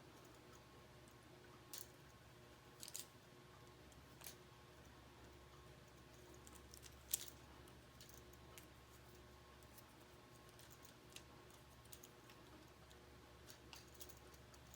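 Scattered faint clicks of plastic K'nex rods and connectors being snapped together, the sharpest one about seven seconds in, over a faint steady hum.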